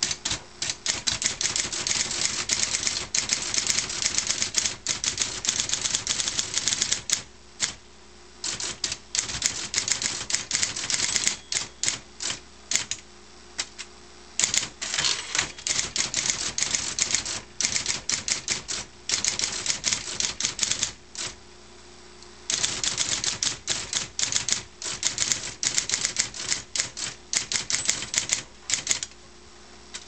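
Olympia Model 50/51 electric typewriter being typed on fast: runs of rapid clacking keystrokes with short pauses between them, over the steady hum of its running motor.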